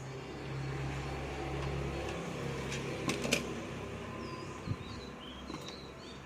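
A steady low electric hum that cuts off about two seconds in, followed by a few sharp clicks, with birds chirping near the end.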